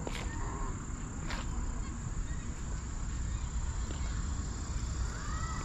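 Insects, crickets by their sound, chirping in a steady high-pitched drone over a low rumble, with a few faint short bird chirps.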